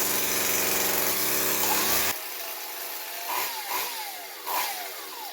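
Husqvarna 45 two-stroke chainsaw running fast after years of sitting. About two seconds in the sound drops off suddenly. The engine is then blipped several times, its pitch rising and falling back after each.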